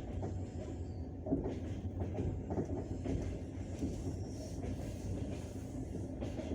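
Passenger train running along the line: a steady low rumble of wheels on rails, with a few sharp wheel knocks over rail joints.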